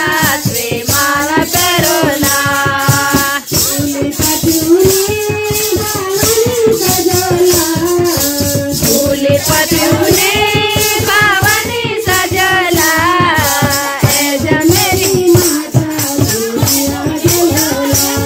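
Kirtan: devotional singing, a melody with long held notes, over a steady, fast beat of hand percussion and rattling shakers.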